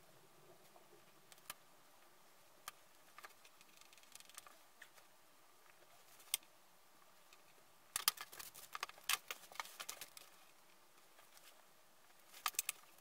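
Faint handling sounds of hands working a clay slab box on a cloth: scattered light clicks and taps. About eight seconds in comes a two-second flurry of tapping and rustling, and there is a quick run of clicks near the end.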